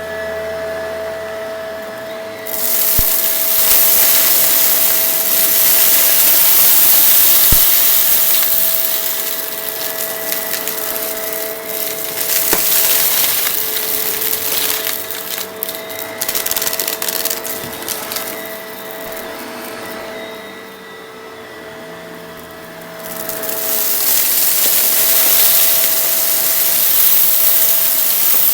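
Shark vacuum cleaner running with a steady motor whine while sucking up a dusty mess. Dirt and debris crackle and rattle through it in loud, gritty bursts, which ease off for a few seconds about two-thirds of the way through.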